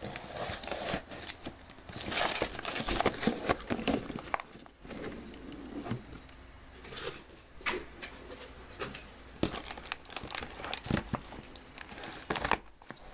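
Plastic shrink-wrap crinkling and cardboard rustling as shrink-wrapped trading card boxes are handled and moved, with irregular crackles and a few sharper clicks.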